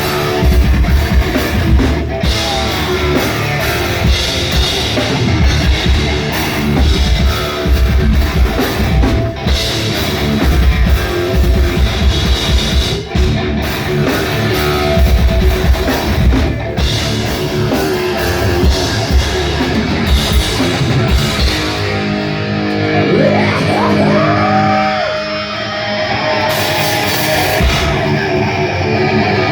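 Heavy metal band playing live: distorted electric guitars over a drum kit. About 22 s in the drums drop back, leaving guitar with bending, gliding notes.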